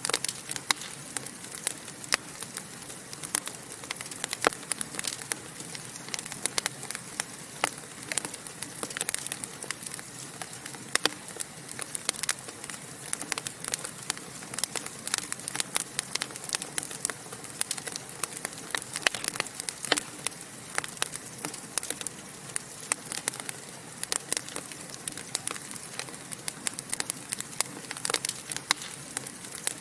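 Wood logs burning in a fireplace, crackling with many sharp, irregular pops over a steady hiss.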